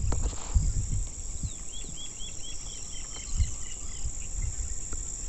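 Outdoor field ambience: insects keep up a steady high-pitched drone while a bird calls a quick series of about eight short repeated chirps in the middle. Low rumbling from wind on the microphone runs underneath.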